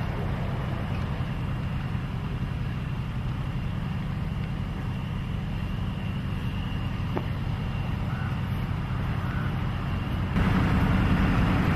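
Steady low outdoor rumble, with no clear single source; it steps a little louder about ten seconds in.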